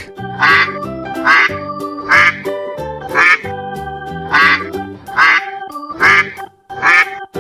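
Duck quacking about eight times, roughly once a second, over cheerful background music.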